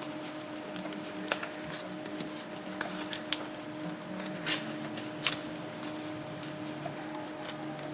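Irregular small clicks, taps and rustles of paper and card stock being handled and stuck together while a card is assembled, over a steady low hum.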